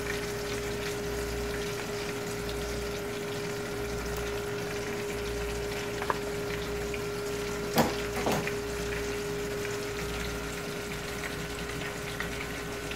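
Steady sizzle of salmon frying in a pan, with a pot of pasta water at the boil and a steady hum underneath. Two short clinks about eight seconds in.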